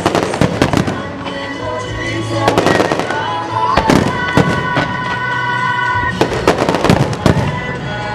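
Aerial fireworks bursting in clusters of sharp bangs and crackles, several groups in a few seconds, over music with long held notes.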